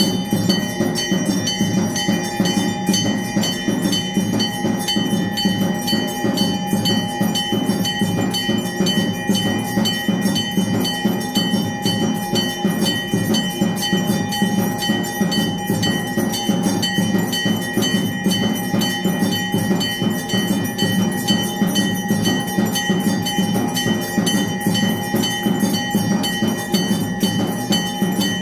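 Hindu temple aarti: bells ringing without a break over fast, even percussion and jingling.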